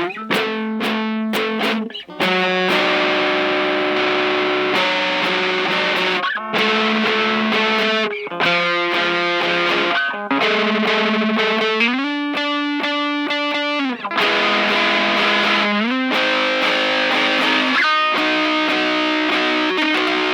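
Distorted electric guitar playing slow, sustained chords that change about every two seconds, with the pitch sliding up twice along the way.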